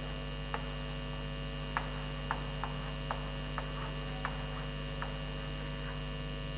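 Chalk ticking against a blackboard while words are written, about eight light, irregular ticks over a steady electrical hum.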